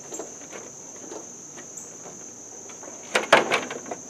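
Crickets chirring steadily in a continuous high buzz. About three seconds in, a quick cluster of sharp clicks and knocks comes from the plastic housing being worked into place on the tractor.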